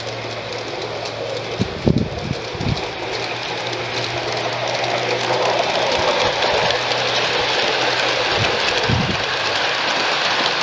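LGB G-scale model train rolling along outdoor garden track, its wheels running on the rails and growing louder as it comes past close by. A few short low thumps come about two seconds in and again near the end.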